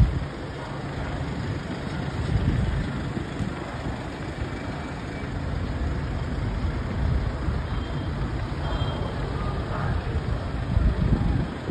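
Mercedes-Benz Sprinter police vans driving past close by, their engine and tyre noise rising and falling over a steady low street rumble.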